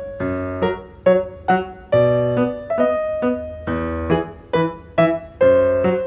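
Background piano music: a gentle melody of single notes and chords, each struck and then dying away, about two a second.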